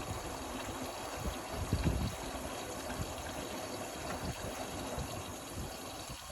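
Indesit Innex XWA 81252 washing machine with water running and splashing in the drum, a steady rush with irregular low sloshing thumps.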